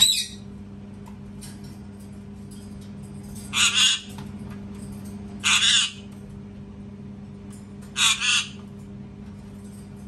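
Indian ringneck parakeet screaming: four short screeches, the first right at the start and the others about two seconds apart.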